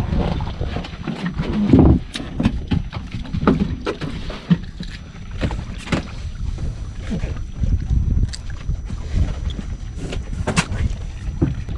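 Gear knocking and clicking against a small wooden boat while a fishing longline is set in shallow water, over a low rumble of wind and water. The knocks are short and irregular and come throughout.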